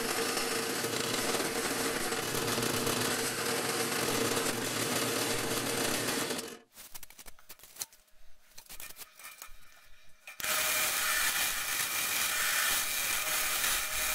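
Drill press running and boring 1 1/4-inch holes in plywood with a Forstner bit, a steady motor hum with cutting noise. About six and a half seconds in it drops away to a few light clicks for about four seconds, then steady drilling resumes.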